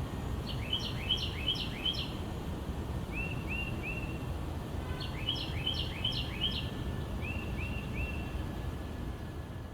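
A songbird singing phrases of three to five quick, repeated whistled notes, four phrases in all, over a steady low background rumble.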